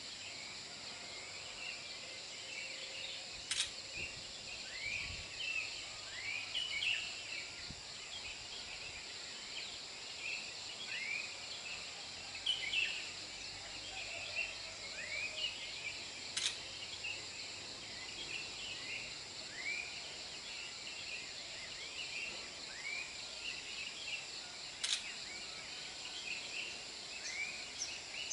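Steady high-pitched insect drone with short chirping calls repeating about once a second, and three sharp faint clicks spread through it.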